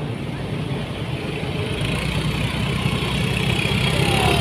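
Small motorcycle engine running at idle close by, slowly getting louder, over steady street traffic.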